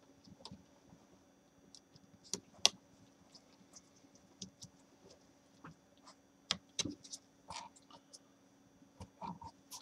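Scattered light clicks and taps of a small screwdriver and gloved hands on a laptop LCD panel and its metal side brackets as the side mounting screws are driven in. Two sharper clicks come about two and a half seconds in and a quick run of clicks around seven seconds, over a faint steady hum.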